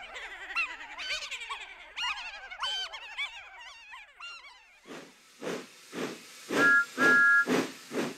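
A crowd of cartoon freight trucks laughing and cackling together, many voices overlapping. After about four and a half seconds this gives way to a steam engine chuffing at about two puffs a second, with two short blasts of a two-note whistle, the second longer.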